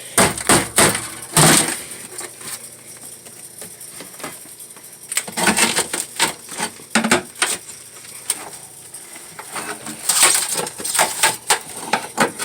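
Ice being knocked, cracked and scraped loose from the frost-packed freezer compartment of a 1960s Frigidaire refrigerator: bursts of sharp knocks and cracks about a second in, again around six seconds in, and near the end.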